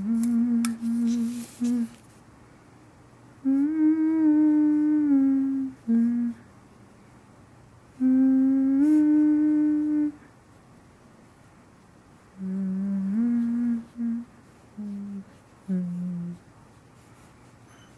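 A person humming a slow wordless tune in long held notes that step between pitches, in four phrases with pauses between them.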